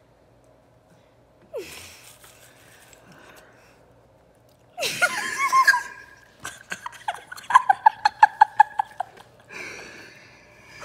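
A boy laughing hard: a gasping, squealing burst about five seconds in, then a rapid run of high-pitched 'ha' pulses, about six a second, trailing off into breathy wheezing near the end.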